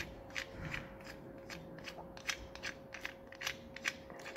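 A small nut being spun by hand onto a bolt, its threads and the parts in the fingers giving a string of light, irregular clicks, about three a second. A faint steady hum sits underneath.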